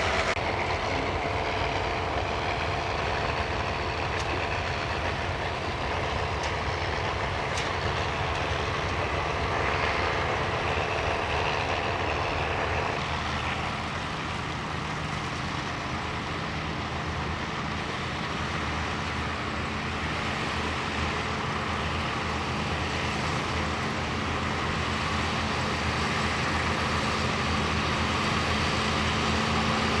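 Diesel engines of County four-wheel-drive tractors running steadily under load as they pull ploughs. The engine note changes about halfway through.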